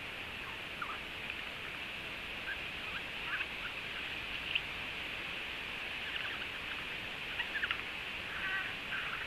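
Scattered short bird calls over a steady high hiss, with a brief call of several stacked tones about eight and a half seconds in.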